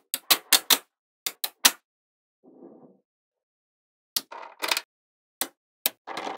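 Small magnetic balls snapping together in sharp clicks, coming in quick runs of three or four, with short rattles of balls rubbing against each other near the end.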